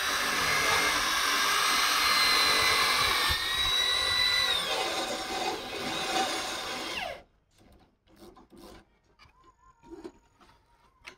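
Cordless drill running for about seven seconds, drilling into the top rail over a cooling pad. Its whine drops in pitch about four and a half seconds in, then it stops, leaving a few faint knocks.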